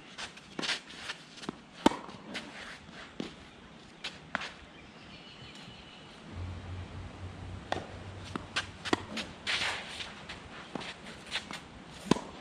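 Footsteps and shoe scuffs on a tennis court between points, with scattered sharp taps, the loudest about two seconds in. A low hum joins for a few seconds from about six seconds in.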